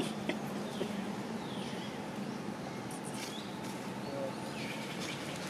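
Steady outdoor background noise with a low hum. There are faint falling chirps, one about a second and a half in and another near the end, and a few faint high crackles in the middle.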